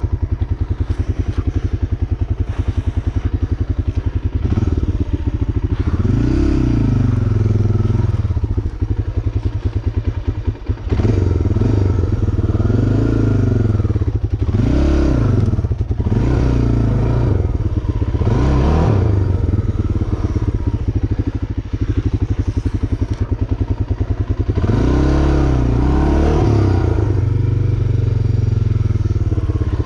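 A motor vehicle's engine running hard under load, revving up and falling back again and again, about six times. It sounds like a vehicle straining to climb a slope.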